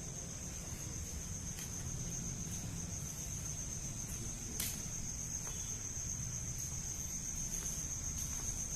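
Crickets trilling steadily, one continuous high-pitched note, over a low rumble. A single sharp click about four and a half seconds in.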